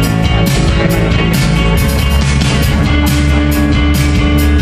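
Live rock band playing loud: electric guitars over a drum kit keeping a steady beat. A long held note comes in about three seconds in.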